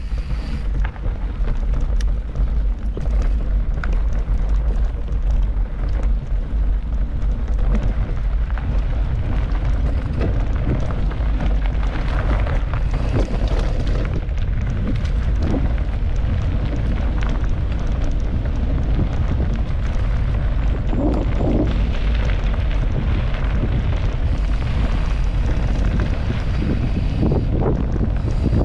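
Wind buffeting the microphone on a moving mountain bike: a steady low rumble, with rattles and clicks from the bike running over rough ground.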